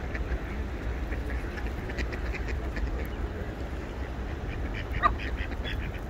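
Ducks quacking in short, scattered calls, with one louder call about five seconds in, over a steady low rumble.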